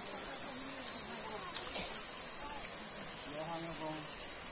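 Insects chirring in a steady high-pitched chorus that swells about once a second, with faint voices in the background.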